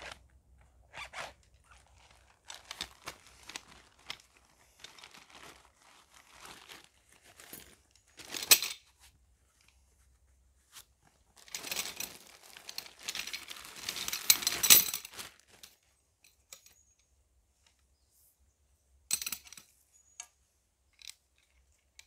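Intermittent rustling, crinkling and tearing noises of material being handled, with a few clicks. There is a sharp burst about a third of the way in, a longer stretch of dense rustling lasting about four seconds past the middle, and another short burst near the end.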